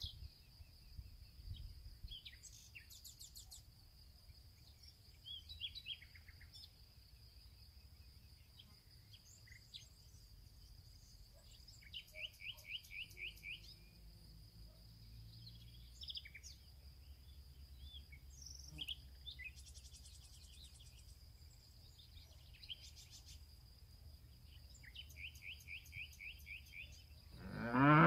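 Birds chirping in short, quick runs over a low rumble and a steady high whine; near the end a cow moos once, loudly.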